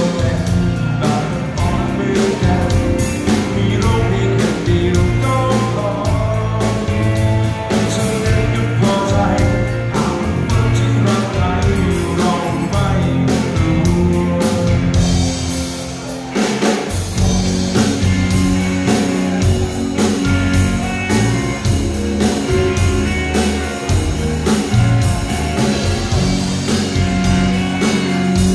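A live rock band playing: a male singer over two electric guitars, bass guitar and a drum kit. The band drops out for a moment just past the middle, then comes back in.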